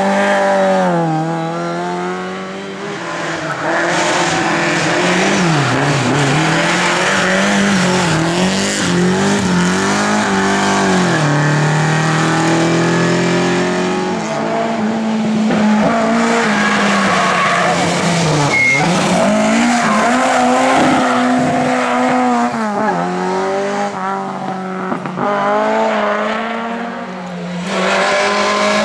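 Lada race car engines revving hard, the pitch climbing and then dropping again and again as the drivers shift and lift through corners, with tyres squealing.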